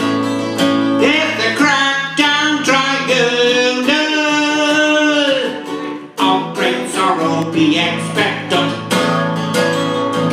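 A man singing a long, wavering held line over a strummed acoustic guitar, from about a second in; the voice drops out briefly near six seconds and the strumming carries on.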